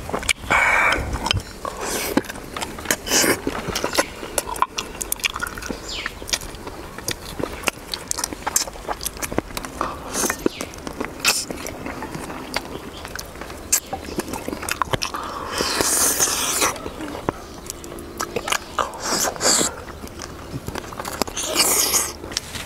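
Close-up eating sounds: a man biting and chewing on pieces of bone-in braised rooster, with many short clicks of the mouth and a few longer noisy stretches.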